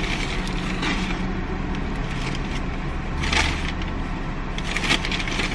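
Paper bag and plastic packaging rustling and crinkling as a hand rummages inside the bag, with louder crinkles about three seconds in and near the end. Under it is a steady low hum from the car.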